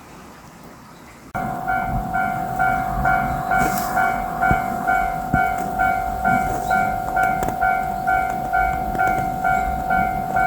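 A Japanese railway level-crossing alarm starts suddenly about a second in and keeps ringing: an electronic ding repeating about twice a second over a steady tone. It is the warning that a train is approaching the crossing.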